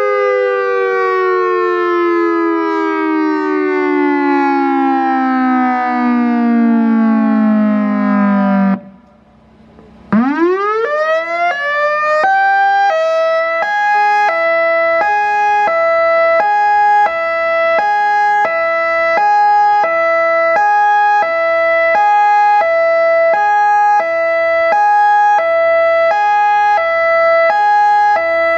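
EOWS 612 electronic outdoor warning siren sounding its signals through horn speakers. A long falling tone winds down and cuts off abruptly about nine seconds in. After a short gap, a quick rising tone settles into a steady note, then changes to a high-low two-tone alternation that continues.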